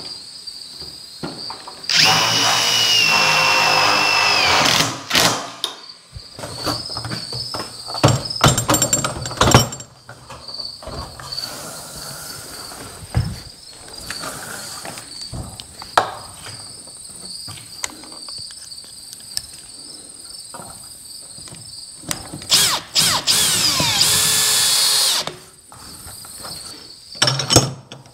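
Cordless impact driver running in bursts as it drives self-tapping screws into the steel garage door panel: one run of nearly three seconds about two seconds in, a short clattering run around eight seconds, and another run near the end that rises in pitch. Crickets chirp steadily in the background.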